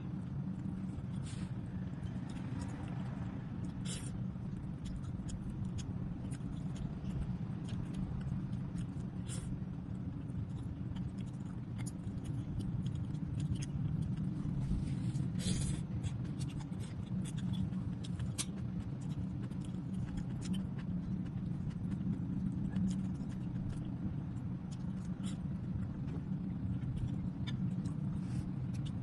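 Eating sounds at a table: a spoon clinking on a ceramic plate and a mug set down now and then, as a few sharp clicks over a steady low hum.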